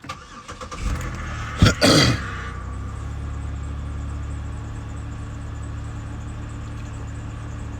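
2008 Chevrolet Impala started with the key: a short crank, a loud catch about two seconds in, then the engine settles into a steady idle.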